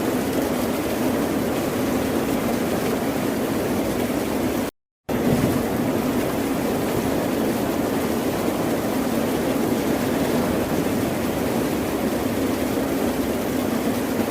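Steady wash of ocean surf, even and unbroken, except that it cuts out to silence for about a third of a second nearly five seconds in.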